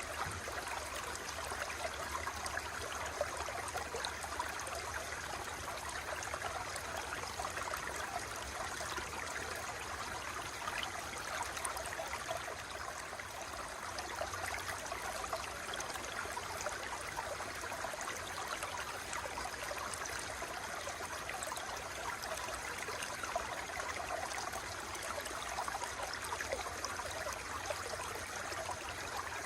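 Water flowing steadily, with an even, unbroken rushing splash.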